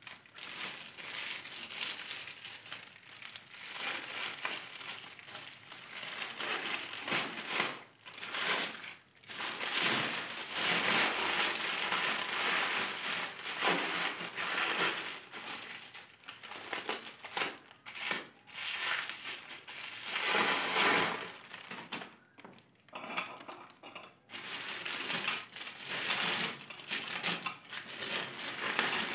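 Packaging being unwrapped by hand: irregular crinkling, crumpling and rustling in uneven spells with short pauses between them.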